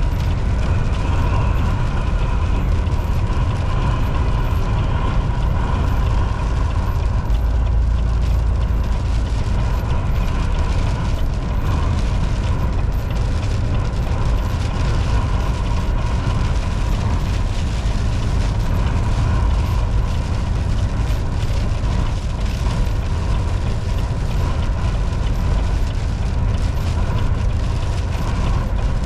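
Volvo VNL 760 semi truck driving at highway speed: a steady, loud low rumble of engine and road noise.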